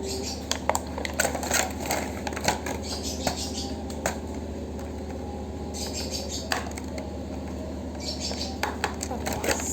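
Plastic toy packaging being handled and opened by hand, crinkling with irregular clicks and crackles, busier near the end.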